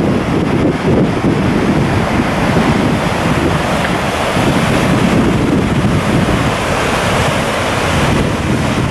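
Fast-flowing river below Godafoss rushing through rapids, a steady loud roar of water. Wind buffets the microphone in uneven low gusts over it.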